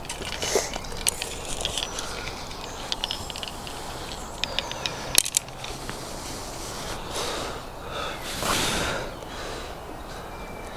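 Fishing tackle being handled: a run of small clicks, taps and scrapes, the sharpest about five seconds in, then a couple of soft rustling swishes.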